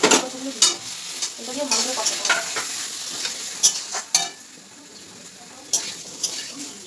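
A spatula scraping and knocking against a kadai as vegetables are stirred in a frying spice paste, which sizzles underneath. The strokes come irregularly, and the sizzle eases about four seconds in.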